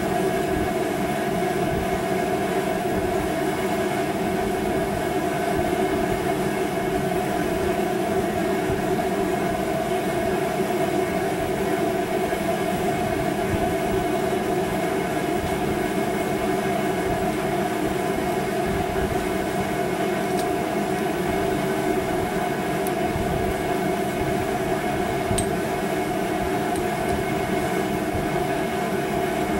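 Steady machine hum with fixed pitches, running without change at an even level.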